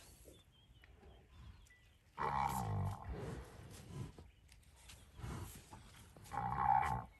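White rhino cow in labour giving two loud, low calls about four seconds apart, with fainter sounds between, as she strains to push out her calf.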